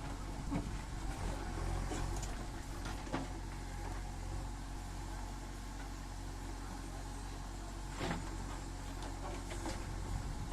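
A construction machine's engine running steadily, with a few sharp knocks.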